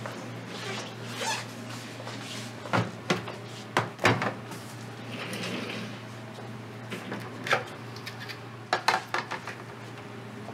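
Clicks and knocks of plastic film cans being handled and set down: a few sharp ones in the first half and a quick cluster near the end, over a steady low hum.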